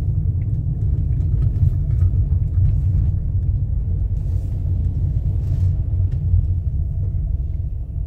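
A car driving slowly on a paved street: a steady low rumble of engine and tyres, easing off a little toward the end as it slows.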